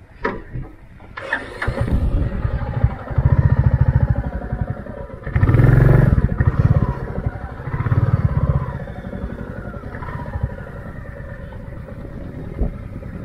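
Motorcycle engine running with a pulsing low beat, revved up in three surges about three, five and a half, and eight seconds in.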